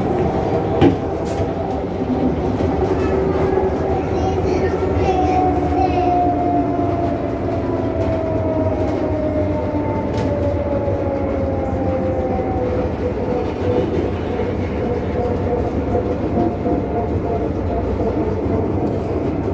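Tram running, heard from inside the passenger cabin: a steady rumble of wheels on rail with the electric traction motor's whine, which glides down in pitch over several seconds as the tram slows. A single sharp knock about a second in.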